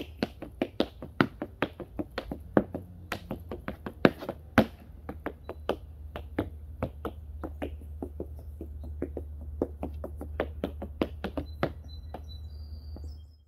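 Tap shoes striking a board laid on the ground: a fast, dense run of sharp metal taps and heel clicks, thinning to softer, sparser taps about halfway through and stopping near the end. A steady low rumble runs underneath.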